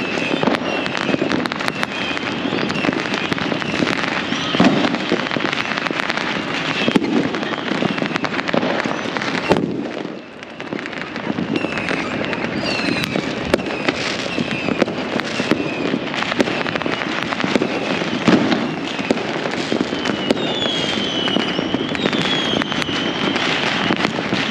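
Many fireworks and firecrackers going off at once across a city: a dense, unbroken crackle of pops and bangs, with a brief lull about ten seconds in. Whistling rockets glide in pitch here and there, most clearly near the end.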